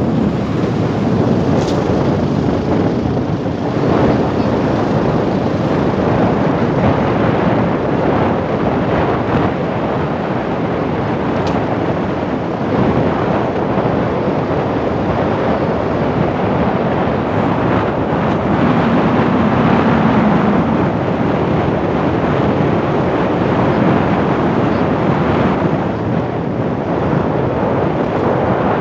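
Motorcycle in motion: steady wind rushing over the microphone, with the bike's engine running underneath.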